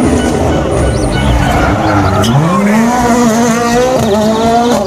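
Rally car engine revving hard as it drives past, its pitch climbing sharply a little past two seconds in and then held high.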